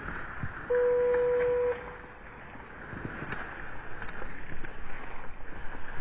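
A single steady buzzer-like tone lasting about a second, about a second in, followed by rustling steps through tall dry grass and brush that grow louder toward the end.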